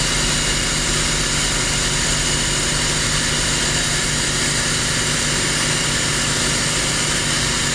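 A 3.5 gallon-per-minute hot-water pressure washer running steadily with its pump drawing detergent through the soap line, a constant mechanical drone with a steady hum.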